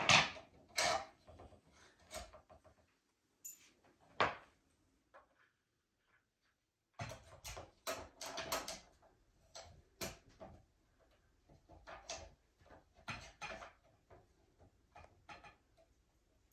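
Irregular clicks and light knocks of hand assembly: a bolt being removed and the rear wheel being fitted to the frame of an Earthway garden seeder, with a near-silent pause of about two seconds midway.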